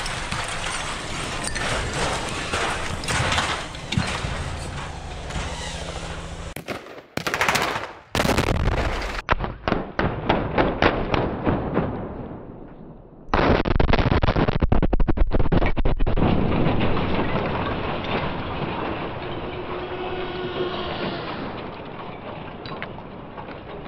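Dynamite blasts from a car being blown apart, heard in several cut-together takes. One shot is a dense rattling crackle, and about 13 seconds in a sudden loud blast fades into a long rumble with the clatter of debris coming down.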